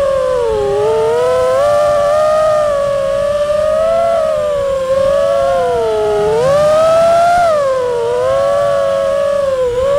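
FPV freestyle quadcopter's motors and propellers whining, the pitch rising and falling with the throttle and climbing highest about six to seven seconds in, over a low rush of air.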